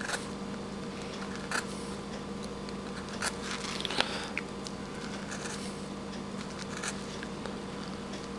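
A V-tool cutting into a small wood carving: a handful of short scratchy cuts and clicks spaced a second or more apart, over a steady low hum.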